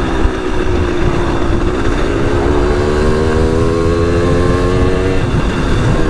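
Simson moped's 50 cc two-stroke engine under way, its pitch climbing steadily for about three seconds, then dropping near the end and picking up again. A heavy low rumble lies underneath.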